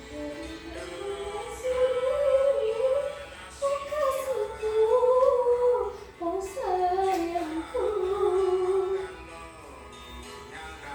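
Song playing: a woman singing a melody with held and gliding notes over an instrumental accompaniment. The singing fades out near the end.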